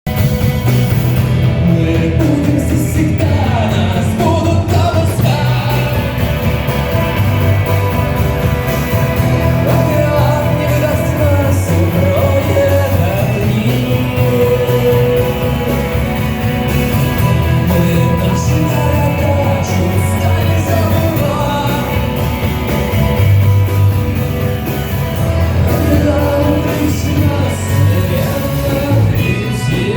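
A song: a sung voice over a band with a steady bass line.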